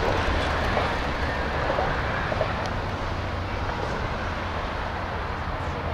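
Steady motor-vehicle noise: engines running with a low hum, and the even rush of traffic driving through.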